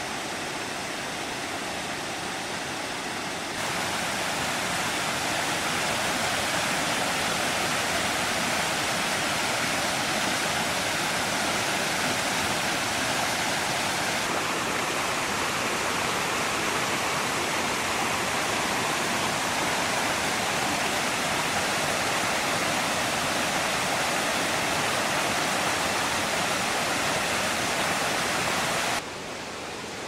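Steady rush of falling water from the Kravica waterfall and its river cascades, an even roar with no single splashes. It turns abruptly louder a few seconds in and drops suddenly just before the end.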